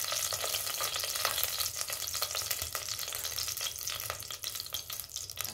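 A little cooking oil sizzling and crackling in a hot stainless steel pot on a gas stove: a steady hiss dotted with many small pops.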